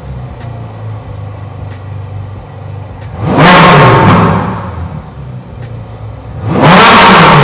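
Ferrari 458 Speciale's 4.5-litre V8 idling, then revved twice while stationary: once about three seconds in and again near the end. Each rev climbs fast to a loud peak and falls back toward idle.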